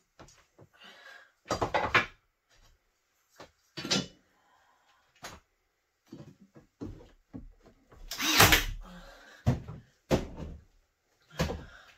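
Scattered knocks and clunks of a square and wooden window trim being handled and pressed into place, about eight separate bumps with the loudest, longest one about eight seconds in.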